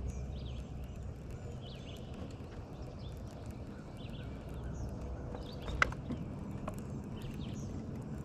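Birds chirping in short repeated calls over a low steady hum, with one sharp click just before six seconds in.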